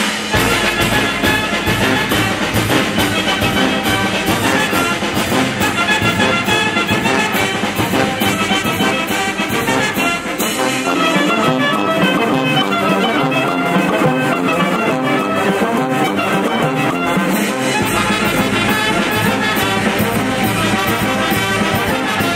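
A banda filarmónica, a village wind band, playing live and loud: clarinets, saxophones, flute, trumpets, baritone horns and sousaphones over bass drum and snare, in a steady beat.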